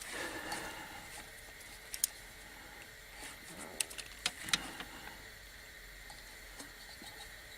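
A few small sharp clicks and light rustling of rubber vacuum hoses and plastic connectors being handled and fitted on an engine.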